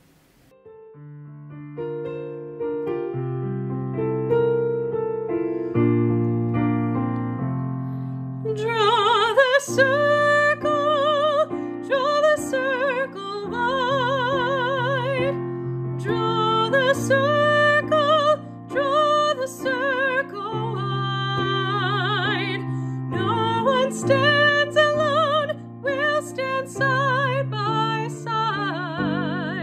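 Slow, soft piano music of sustained chords. About eight seconds in, a singing voice with wide vibrato joins over the piano.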